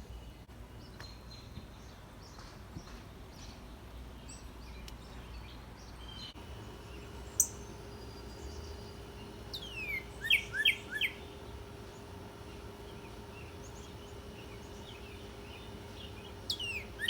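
A songbird singing the same short phrase twice, about seven seconds apart: a few quick falling whistles followed by a run of rapid repeated notes, with a single sharp chirp shortly before the first phrase.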